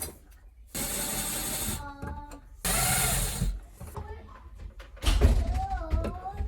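Power drill running in two short bursts of about a second each, starting and stopping abruptly. A voice comes in near the end.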